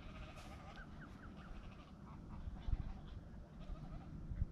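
A few short, wavering bird calls, duck-like, over a steady low rumble of wind on the microphone, with two dull low bumps about two-thirds of the way through and near the end.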